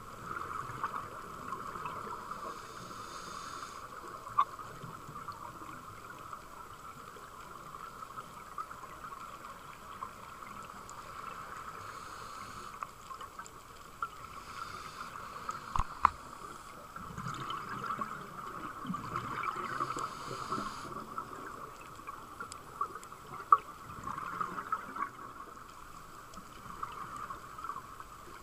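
Underwater sound picked up through a diving camera's housing: a steady crackling hiss with scattered sharp clicks, and bursts of bubbling from a scuba diver's exhaled breath.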